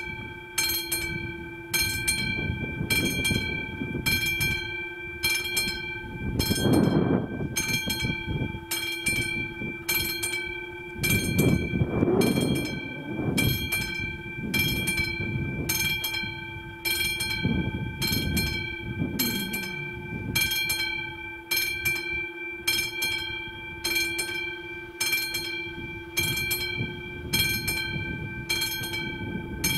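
Level-crossing warning bell, the classic mechanical bell of an AŽD 71 crossing signal, striking steadily about twice a second with a ringing tone between strikes. Low rumbling swells rise and fall underneath, strongest about a quarter and two fifths of the way through.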